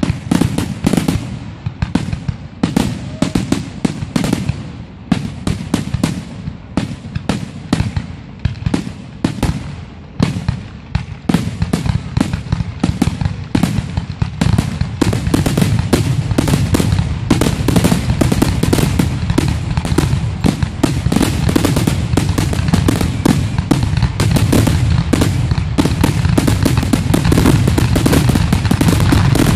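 Aerial fireworks finale barrage: many shells bursting in rapid, overlapping bangs and crackles. From about ten seconds in the bursts run together into a louder, near-continuous volley.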